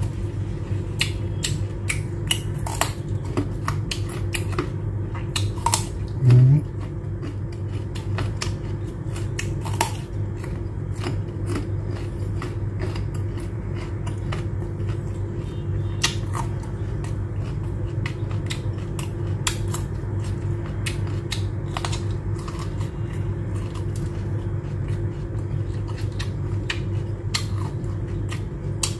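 A person chewing crunchy food close to the microphone, including a raw carrot, with many sharp crisp crunches scattered through. A steady low hum runs underneath, and there is one brief low thump about six seconds in.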